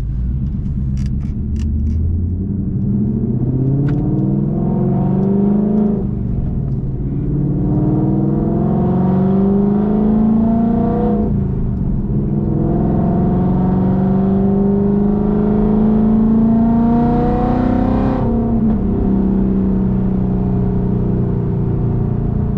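2019 Ford Mustang GT's 5.0 L V8, fitted with Kooks headers and a Borla ATAK cat-back exhaust, accelerating through the gears: the engine's pitch climbs, drops at each of three upshifts, then holds steady at cruise.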